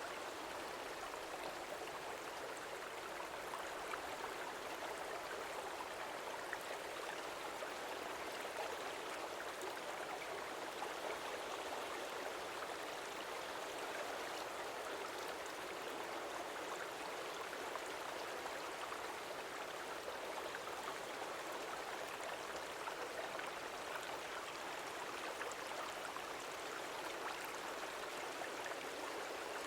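Small stream flowing: a steady, even rush of water with no change.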